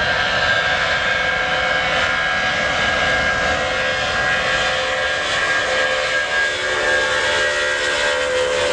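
Boeing 757 jet engines running loudly on the runway: a steady high-pitched whine over broad engine noise, with a lower tone that shifts slightly in pitch near the end.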